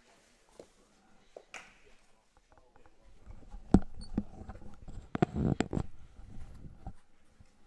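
Several sharp knocks and thumps, the loudest about four seconds in, followed a second later by a short cluster of clattering knocks and scuffing.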